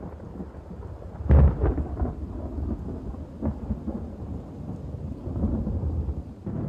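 Thunder: a sharp crack a little over a second in, then rolling rumbles.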